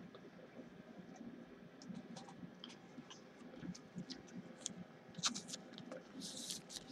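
Faint handling noise of fingers on a trading card: scattered light ticks and scratches, a sharper click about five seconds in, and a short scraping rustle near the end.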